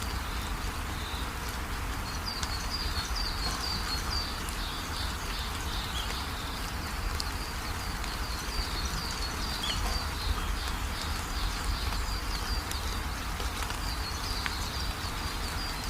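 Outdoor nature ambience: runs of quick high-pitched chirps repeating over a steady hiss.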